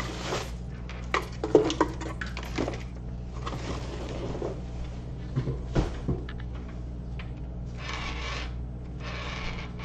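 Unpacking noise: plastic-bagged packing foam and a cardboard box being handled and moved, with rustling and scraping and scattered knocks and clicks, the sharpest knock about six seconds in. A steady low hum runs underneath.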